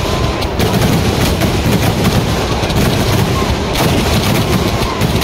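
A continuous barrage of festival fireworks: rapid, overlapping explosions from shells launching and bursting, with no pause.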